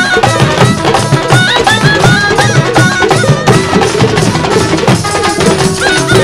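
Background folk-style music: an ornamented melody stepping between notes over fast, steady hand-drum strokes.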